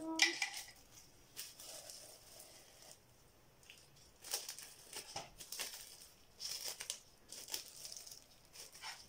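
Plastic wrap crinkling in short, irregular bursts as gloved hands handle and press it.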